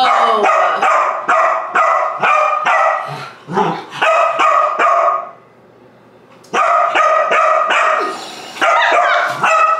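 Dog barking over and over, about three barks a second, with a pause of about a second past the middle.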